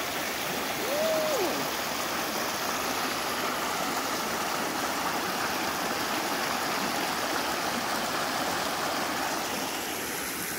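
Shallow river rushing and splashing steadily over rocks in small rapids.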